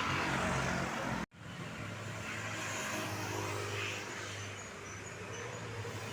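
Roadside traffic noise from passing vehicles. It cuts out abruptly for an instant just over a second in, then carries on as a steadier low engine hum.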